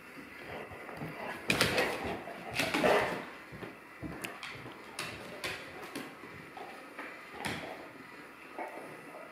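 A dog's paws scrabbling and claws clicking on a hardwood floor as it chases a laser dot. Two louder bouts of scuffling come early, then scattered single clicks.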